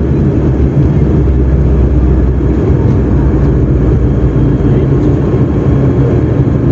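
Steady low rumble of a Buddha Air turboprop airliner heard from inside the cabin, on the ground just after landing.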